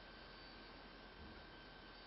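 Near silence: faint room tone with a thin steady whine and a low hum.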